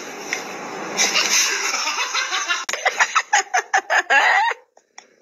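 A cat making a quick run of short, duck-like quacking calls, about five a second, for about two seconds. Before it comes a stretch of steady hiss-like noise that cuts off abruptly a little under three seconds in.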